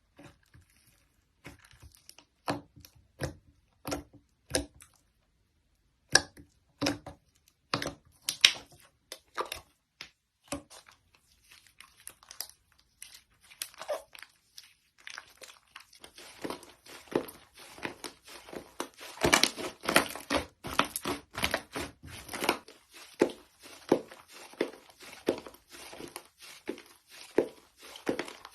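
Slime being pressed and squeezed by hand, giving separate sticky pops and crackles, then about halfway through a denser, almost continuous run of crackling and popping.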